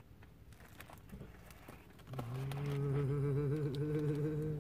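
Faint clicks of a plastic fork picking at food in a cardboard box, then about two seconds in, a person starts a long, wavering 'mmm' hum of enjoyment while eating.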